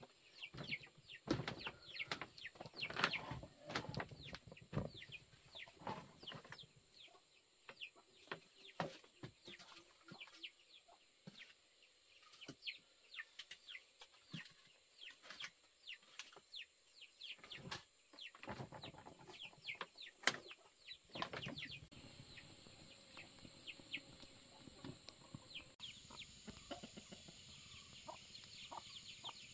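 Chickens clucking, with many short knocks and clicks of wood being handled at an earthen hearth; the knocking thins out after about 22 seconds.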